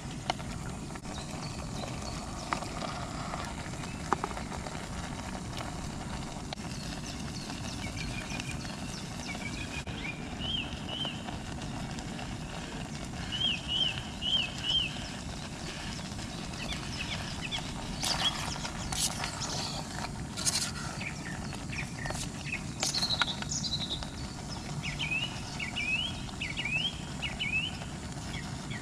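Steady hiss of a camping gas stove under a simmering pot, with birds chirping in short rising-and-falling notes now and then. Around the middle come a few sharp taps and clicks from the wooden spoon working in the metal pot.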